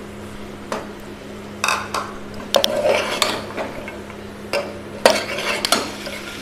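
Metal spoon stirring cut vegetables into a pressure cooker pot, with a series of sharp clinks and knocks against the metal as the pieces go in and are turned.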